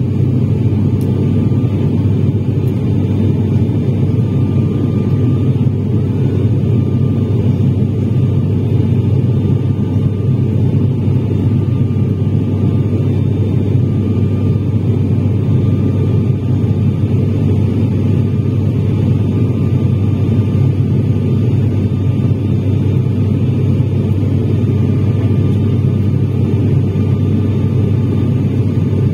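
Steady, deep drone of an ATR 72's turboprop engines and propellers, heard in the passenger cabin during the climb after take-off, with a faint steady whine above it.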